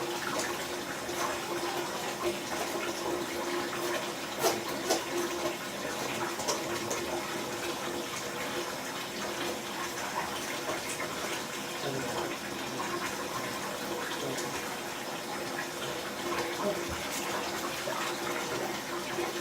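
Water running steadily into a bathtub, a continuous rushing with a steady hum underneath.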